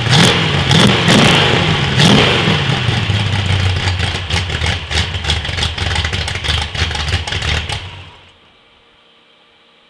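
Cammed 350 small-block Chevy V8 in a 1953 Chevy rat rod: a few quick throttle blips in the first two seconds, then idling with uneven pulses. The engine is shut off about eight seconds in.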